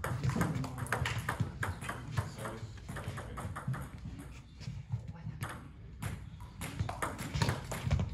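Table tennis ball clicking repeatedly off the bats and the table in fast rallies, with a quieter spell in the middle between points.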